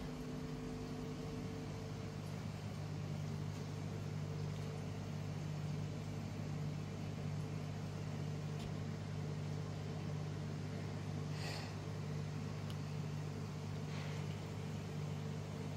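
Steady low hum of running aquarium equipment, with the even hiss of aeration bubbles, which are noisy in a newly set-up tank. A few faint brief noises come over it.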